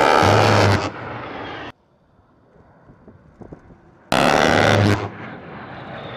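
A-10 Thunderbolt II's GAU-8 Avenger 30 mm rotary cannon firing two short bursts about four seconds apart, each a deep buzz under a second long followed by a fainter rumble. After the second burst the jet's engine whine falls in pitch as it passes.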